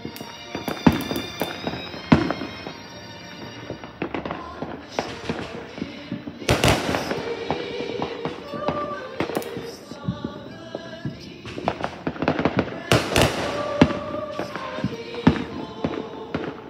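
Fireworks banging and crackling in irregular volleys, with a few bigger, longer booms among the sharp cracks, over faint music.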